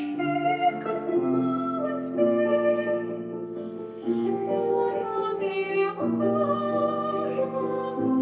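Female voice singing a classical romance in a held, operatic style, with piano accompaniment.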